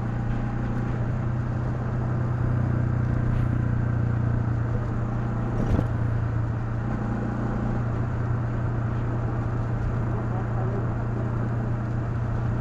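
Honda CL250's single-cylinder engine running at a steady, unchanging pitch, with one short click near the middle.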